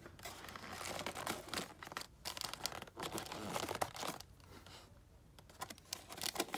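Hands scratching, rustling and crinkling at a sealed hockey card box while struggling to get it open, with a quieter lull a little past halfway.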